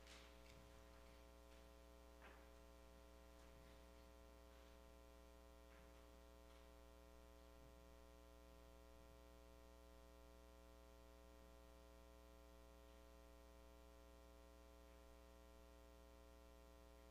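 Near silence: a steady, faint electrical hum, with a few faint ticks.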